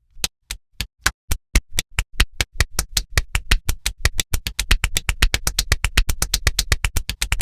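Electronic music beat: a run of sharp clicks, each with a low thump beneath, speeding up steadily from about four a second to about eight a second.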